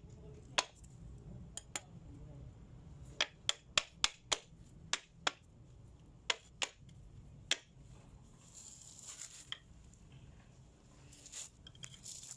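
A handled wooden tapping block knocked down onto a sheet of mosaic tiles to bed them into fresh mortar: about a dozen sharp, uneven knocks, several in quick succession around three to four seconds in. Softer scraping follows in the second half.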